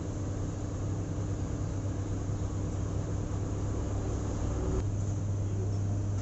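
Honda Unicorn 160 motorcycle's single-cylinder engine idling with a steady hum.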